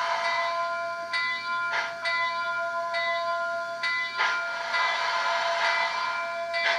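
ESU LokSound sound decoder in an HO scale Canadian Pacific H1b Hudson model playing its steam locomotive sounds as the model runs slowly. Slow exhaust chuffs every second or two and steam hiss sound over a steady ringing tone.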